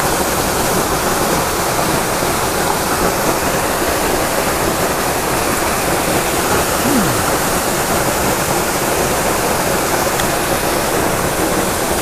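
Waterfall running very loud: a steady, even rush of falling water.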